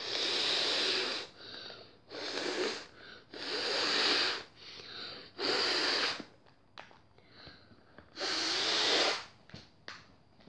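Someone blowing hard into the hole of a folded paper ball (origami water-bomb balloon) to inflate it: five strong puffs of breath, with softer breaths in between.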